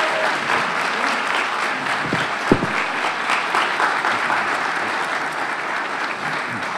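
Audience applauding steadily, with a single thump about two and a half seconds in. The applause begins to ease off near the end.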